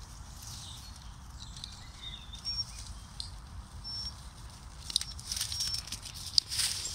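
Dogs running through long grass: a quick rustling patter of paws and brushed stems, growing busier and louder near the end as a dog comes close. Short bird chirps sound now and then in the background.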